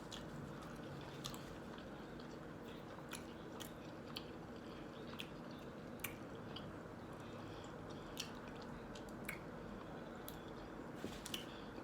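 Person chewing a mouthful of breakfast sandwich close to the microphone: faint wet chewing with many small sharp clicks of the mouth and food, scattered through.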